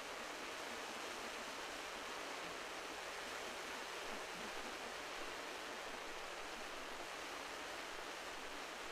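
Steady rushing noise of surf, even in level throughout, with a faint low hum underneath.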